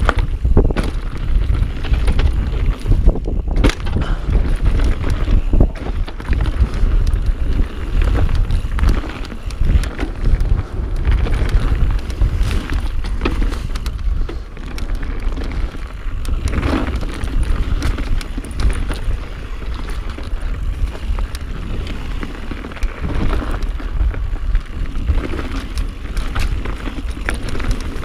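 Mountain bike descending a dirt singletrack at speed, heard from a chest-mounted camera: a steady rumble of tyres on the trail and wind on the microphone, with frequent knocks and rattles as the bike goes over bumps.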